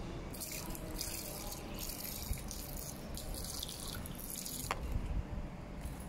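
Hand-held water sprayer misting a wire birdcage with lovebirds inside, in about six short hissing spurts over the first four and a half seconds. A sharp click and a few low knocks follow near the end.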